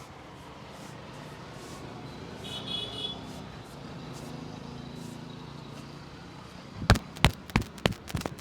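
Low, steady street background with a brief high chirp about two and a half seconds in; near the end sharp hand slaps of a percussive head massage begin, about three a second.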